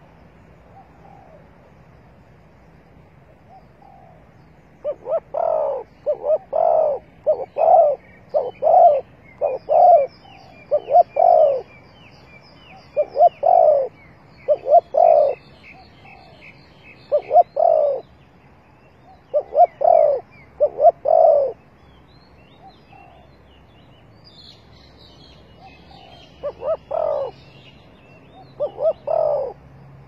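Spotted dove cooing: phrases of low, hollow notes repeated over and over in a long bout, then a short second bout near the end. Fainter high chirping of small birds runs above.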